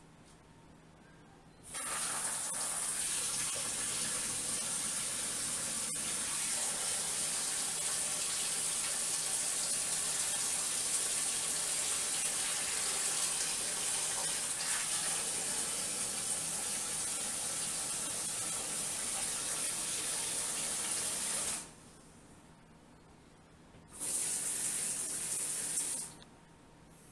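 Kitchen faucet running water into the sink as a steady rush. It is turned on about two seconds in and shut off about twenty seconds later, then runs again briefly for about two seconds near the end.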